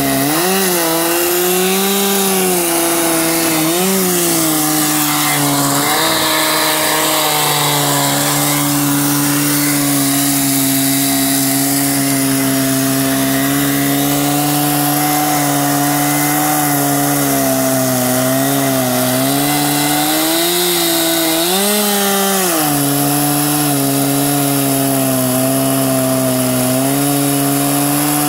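Chainsaw of an Alaskan chainsaw mill running at high revs while ripping a log, loud and steady, its engine pitch wavering briefly a few times as the load on the chain changes.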